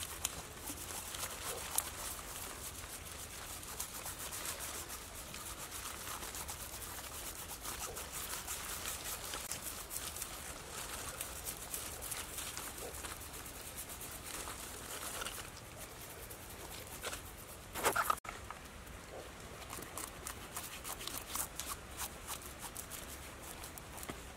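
Leaves and dry leaf litter rustling and crackling as a dead snake is handled on them, with many small clicks and one short louder burst about three-quarters of the way through.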